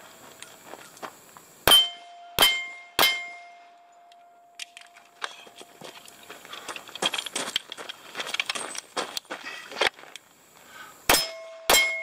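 Three pistol shots about two-thirds of a second apart, each followed by the ring of a struck steel target. Then footsteps crunching on gravel for several seconds, and two more shots with steel ringing near the end.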